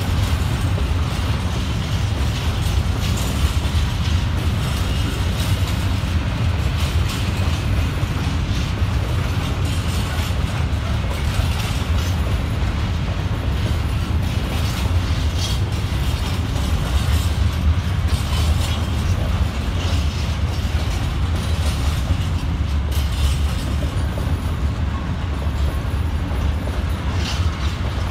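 Freight train of high-sided open wagons rolling past at close range: a loud, steady rumble with the clatter of wheels over rail joints.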